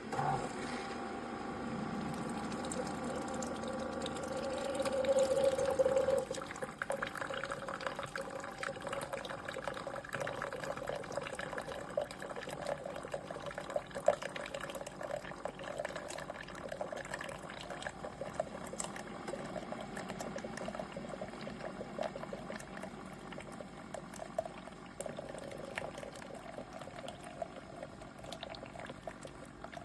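CHULUX single-serve capsule coffee maker brewing: a steady humming tone that swells for about six seconds, then coffee trickling and spattering into the cup.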